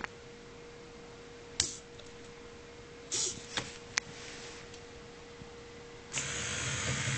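Small electric motors of a homemade Arduino robot whirring in short spurts: a brief burst about three seconds in and a longer run starting about six seconds in, with a few sharp clicks between them. A faint steady tone sounds throughout.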